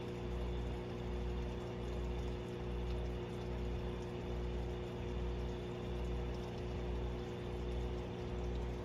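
Aquarium pump humming steadily under a faint water hiss, with a slow, even low pulsing, as it drives water through a fish-egg tumbler to keep the eggs moving.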